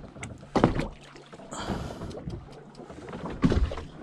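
Knocks and bumps on a wooden fishing boat, two sharp loud ones about half a second in and near the end, over a low steady hum, with a brief hiss around the middle.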